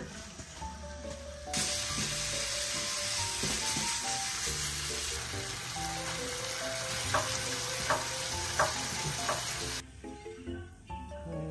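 Gochujang-marinated pork sizzling loudly as it stir-fries in a wok, with three sharp clicks near the end. The sizzle starts about a second and a half in and cuts off abruptly nearly ten seconds in.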